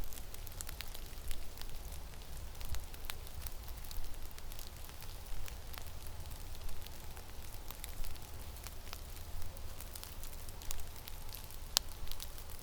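Blizzard wind rumbling on the microphone, with frequent irregular sharp ticks and crackles over it.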